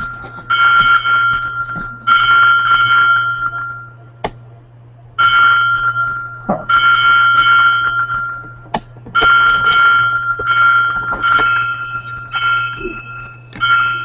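Synthesized bell-like chime tones from a bike-share data sonification, about eight chimes at irregular spacing, each struck sharply and ringing out for a second or so, with a second, higher tone joining near the end, over a steady low hum. Each chime stands for a bike-share trip leaving or arriving at a station.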